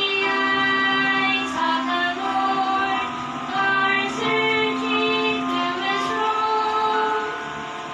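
Two young female voices singing a slow gospel duet in long held notes, with acoustic guitar accompaniment.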